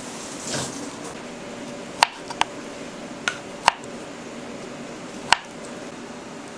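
A chef's knife slicing through a peeled kiwi and knocking on a wooden cutting board: five sharp taps of the blade, two close pairs and a last one near the end. A brief scraping swish of the knife peeling the kiwi's skin comes about half a second in.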